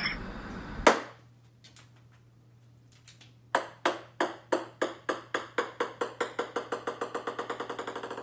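Ping-pong ball bouncing on a hard wooden floor, the taps coming quicker and quicker and slightly softer as it settles. A single sharp click is heard about a second in.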